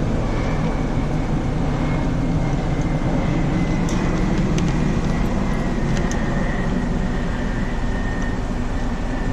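Steady mechanical hum and rush with a faint high whine that slowly falls in pitch, and a few light clicks around the middle.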